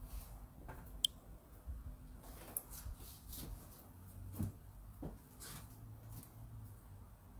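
Faint scattered clicks and rustles of handling, with one sharp click about a second in, over a steady low hum.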